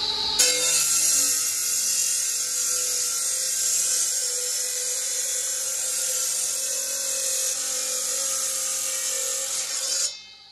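Bench-mounted electric stone-cutting disc slicing into a green marble slab: a steady grinding hiss over the motor's whine. The cut starts about half a second in, and the sound drops away sharply just before the end as cutting stops.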